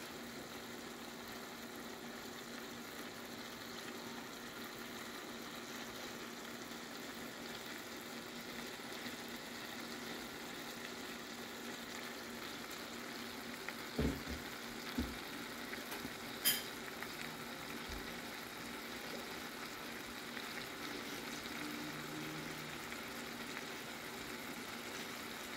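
Halibut steak cooking in lemon garlic butter in a skillet, the sauce giving a steady, even sizzle. A couple of short knocks come about 14 and 15 seconds in, followed by a sharp click.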